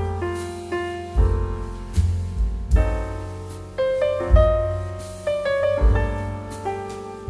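Background music: a piano-like keyboard melody over deep bass notes.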